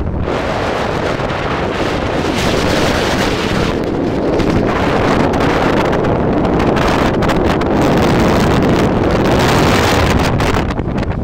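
Wind buffeting the phone's microphone on the open deck of a moving ferry: a loud, unsteady rush with no distinct tones.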